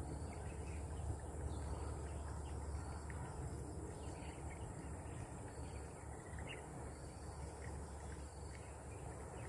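Insects droning steadily in a high, even band over a faint low rumble, with a few faint short chirps scattered through.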